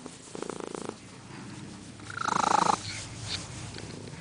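Domestic cat purring loudly, rising and falling with its breathing: a softer burst of purring just after the start and a louder one about two seconds in.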